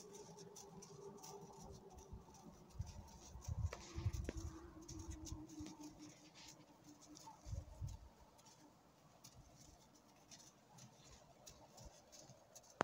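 Faint rustling and light clicks, with a few soft low bumps a few seconds in and again near eight seconds, over a faint steady hum.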